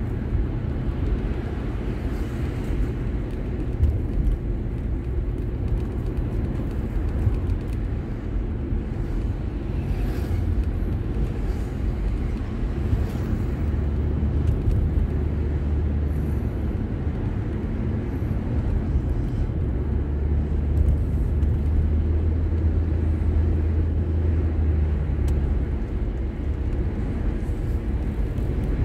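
Steady low rumble of a car's engine and tyres on the road, heard from inside the moving car's cabin, with a deeper steady drone for stretches in the middle and second half.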